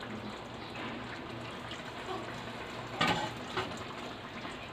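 Steady hiss of the pot of part-cooked biryani rice on the stove, with two short knocks or scrapes of a utensil in the pot about three seconds in.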